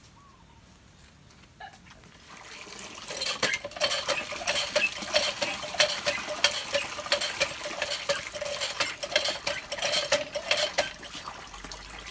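Water gushing from a pipe into a plastic bucket of soapy water, splashing and frothing up the suds. The splashing starts about two seconds in and dies away near the end.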